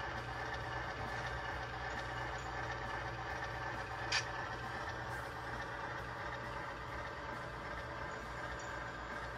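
A steady mechanical hum with a single short click about four seconds in.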